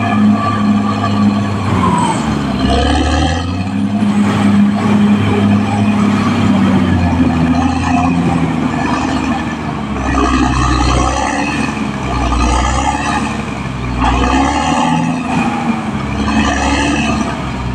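Caterpillar D6R XL bulldozer's diesel engine running under load, its note swelling and easing about every two seconds in the second half as the machine works.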